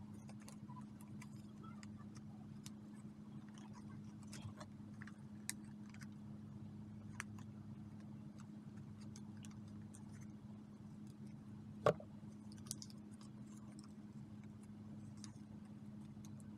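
Faint scattered taps, clicks and paper rustles as a hand presses and smooths a glued picture onto a card journal page, with one sharper tap about twelve seconds in, over a steady low hum.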